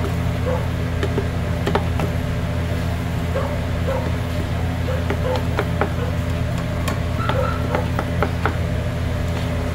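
A wooden spoon stirring and mashing thick mashed potato in an aluminium pot, with irregular knocks and clicks as the spoon strikes the pot's side, over a steady low hum.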